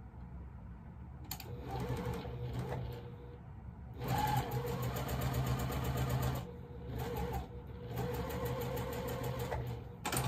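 Electric sewing machine stitching through pinned cotton patchwork in three runs of a couple of seconds each, with short stops between them; the middle run is the loudest. A brief sharp noise comes right at the end.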